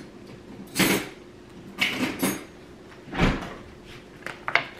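Kitchen handling sounds as a knife and the beef are fetched: four short knocks and clatters about a second apart, one of them with a low thud.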